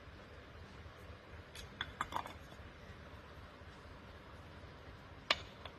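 Float bowl being fitted onto a Honda N600/Z600 carburetor body: a few light metal clinks about two seconds in, then one sharp click and a fainter one near the end.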